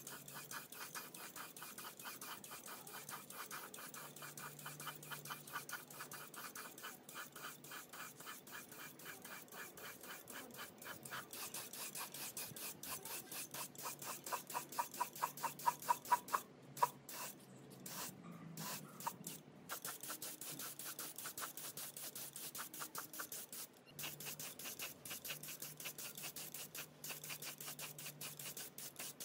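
Gravity-feed air spray gun spraying paint, a hiss with a fast, even pulsing.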